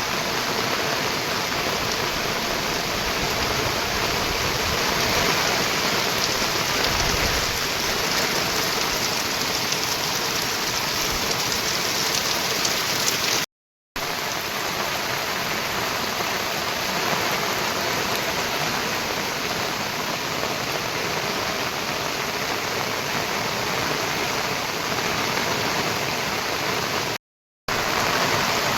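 Heavy monsoon rain as a steady, dense rushing hiss. It cuts out completely for a moment twice, about halfway through and near the end.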